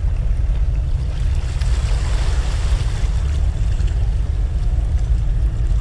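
Wind buffeting the microphone in a steady low rumble, with small waves washing against the breakwater rocks, a little more audibly in the middle of the stretch.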